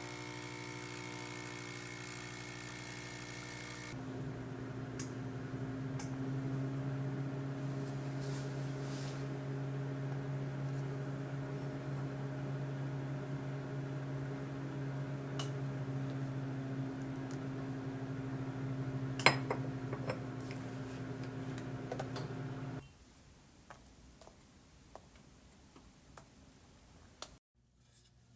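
A steady electric hum from a running household appliance, with a few light clicks and knocks. The hum changes tone about four seconds in and cuts off suddenly about 23 seconds in.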